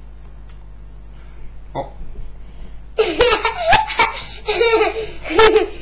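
A young girl laughing in loud, high-pitched bursts, starting about three seconds in.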